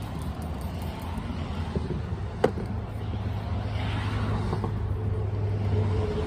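Hands being sprayed from a trigger spray bottle and rubbed together with a bar of soap, over a steady low rumble. A single sharp click comes about two and a half seconds in.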